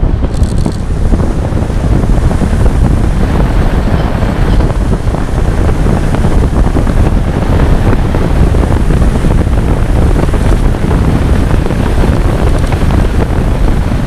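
Rushing airflow buffeting the microphone of a camera mounted on an RC glider model in flight: a loud, steady rushing without a clear motor tone.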